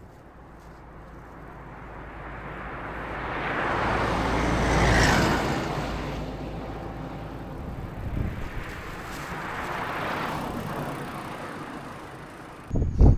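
A motor vehicle passing on the road, its noise building to a peak about five seconds in and then fading, followed by a second, softer pass around ten seconds. Near the end, sudden gusts of wind buffet the microphone.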